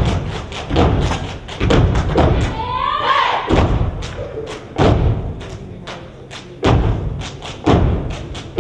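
Step dancers stomping and clapping: a run of loud, uneven thumps from feet striking the floor mixed with hand slaps, with a brief shouted call about three seconds in.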